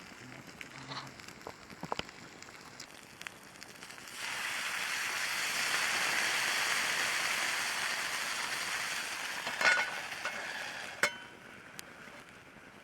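Food sizzling in a hot pan: a loud sizzle starts suddenly about four seconds in, holds, then dies away about seven seconds later. A couple of sharp metal clinks come near the end.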